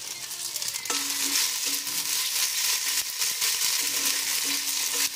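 Sliced onions sizzling and crackling as they fry in hot oil in a small kadai, stirred with a spatula. The sizzle gets louder about a second in.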